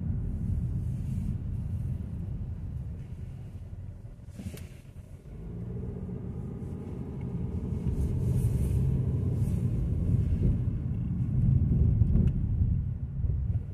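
Steady low road and engine rumble heard from inside a Kia Seltos's cabin while driving. It quiets briefly about four seconds in, then comes back louder, with a couple of faint clicks.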